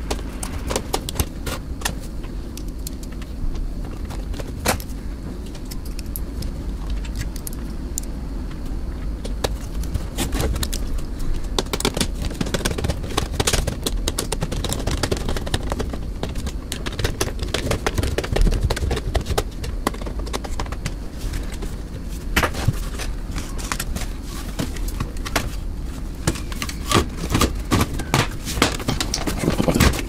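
Plastic clicks, taps and light scrapes as a PC case's front panel is handled and pressed back onto the case, with the clicks coming thicker near the end. A steady low hum runs underneath.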